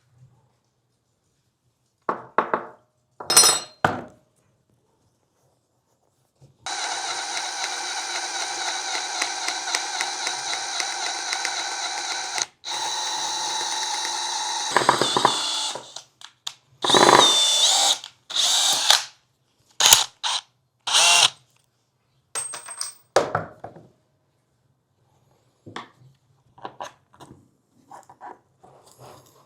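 Power drill motor running steadily for about nine seconds, with a short stop about halfway. It is set between scattered short knocks and clatters of tools and parts.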